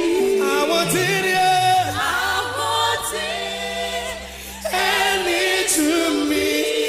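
Gospel choir singing, with held low accompanying notes; the voices drop away for a moment about four seconds in, then come back in.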